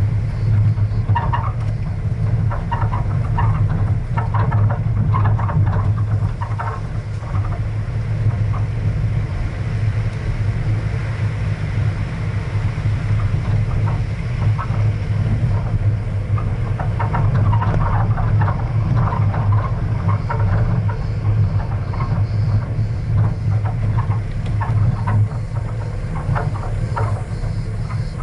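A motor vehicle's engine running steadily at a constant low pitch while driving over a gravel dirt road, with scattered crunching and rattling from the tyres and loose stones.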